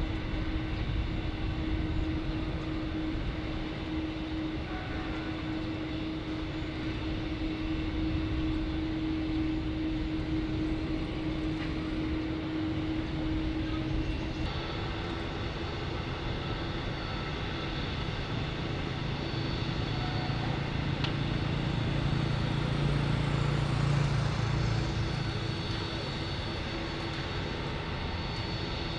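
Jet engines of a twin-engine wide-body airliner (Boeing 787) at takeoff power: a steady rumble with a held humming tone that shifts about halfway through, swelling louder for a few seconds about three quarters of the way in.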